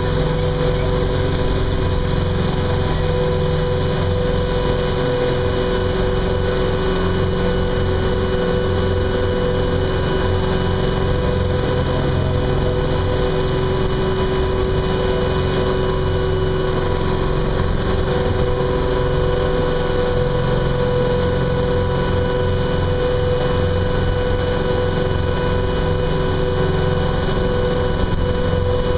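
A boat's engine running steadily while cruising, a constant drone with a steady hum in it and no change in pace.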